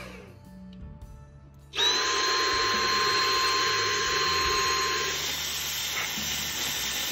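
Vacuum cleaner with a drinking straw taped to its nozzle, winding down at first, then switched on about two seconds in and running with a steady whine while it sucks dirt out of a diesel engine's glow plug well.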